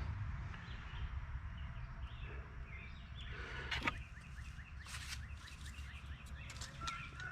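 Faint outdoor background: a steady low rumble, a few light clicks and knocks, and faint bird chirping.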